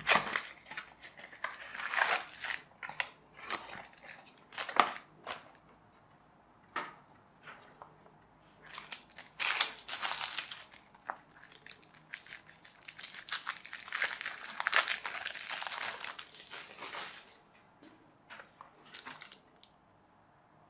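Hands opening a thin cardboard toy-kit box and sliding out and handling printed card sheets, with crinkling of the clear plastic wrap around them. The rustling comes in irregular bursts, busiest about ten seconds in and again around fifteen seconds in, and dies down near the end.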